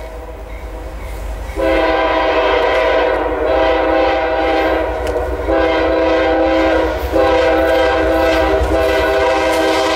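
Approaching CSX freight locomotive's multi-chime air horn sounding a string of long blasts, beginning about one and a half seconds in, with short breaks between them, part of a horn tune played by the engineer.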